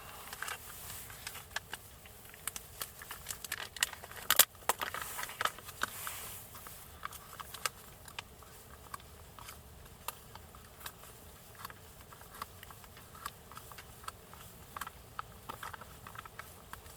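Raindrops pattering irregularly on a tent, a steady soft hiss with scattered sharp taps, busier in the first half with one louder tap about four seconds in.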